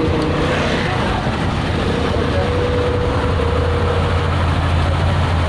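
A large engine running steadily at idle, a constant low hum.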